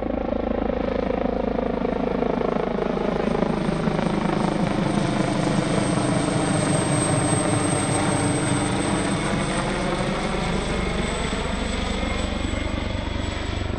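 MH-139 Grey Wolf helicopter, a twin-turbine machine, flying past: steady rotor beat with a high thin turbine whine. It grows a little louder around the middle as it comes closest, then eases off.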